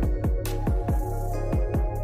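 Electronic background music with a steady kick-drum beat under sustained synth tones.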